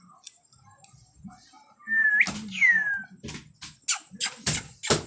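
A clear two-part whistle: a short note that sweeps sharply upward, then a note gliding down. It is followed by a run of sharp clicks.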